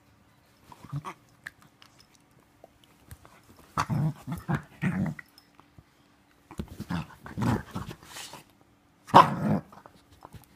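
Australian kelpie growling in several bouts of short, pulsed growls while chewing at her own back legs, the loudest bout near the end.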